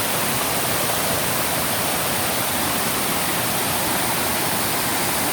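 Waterfall's cascading water making a steady, even rush.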